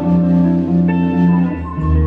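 Live band playing: electric guitar and saxophone over a steady bass line, held notes that change about one and a half seconds in.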